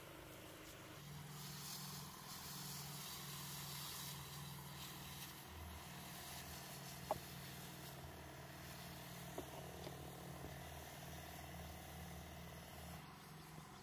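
Steady low hum of a motorized pesticide sprayer pumping through a long hose, with a fine spray hissing from the wand over the first few seconds. A single sharp click comes about halfway through.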